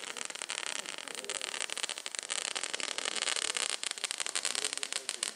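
Crackling pyrotechnics on a radio-controlled Transall C-160 model aircraft: a dense, rapid crackle of many small pops that grows thickest in the middle and thins out near the end.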